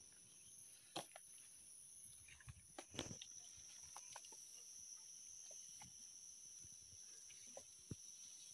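Quiet outdoor ambience: a faint, steady, high-pitched insect drone, with a few light clicks and knocks as pieces of smoked fish are set on a rack of wooden poles.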